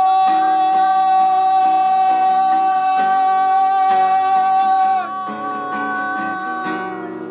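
Singing voice holding one long note over a steadily strummed guitar; the note and the whole sound get quieter about five seconds in.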